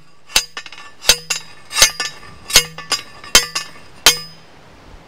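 Manual post driver slammed down onto a steel T-post, six metallic clanks in a steady rhythm about every three-quarters of a second, each ringing briefly, with a lighter rattle as the driver is lifted between strikes.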